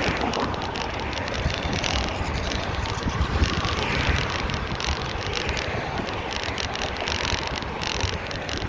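Noise of riding a bicycle: wind buffeting the microphone and tyre noise, with frequent small clicks and rattles.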